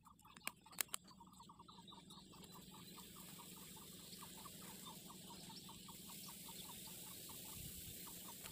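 Faint, steady run of short chirps from a small animal, about six a second. Two sharp clicks sound in the first second.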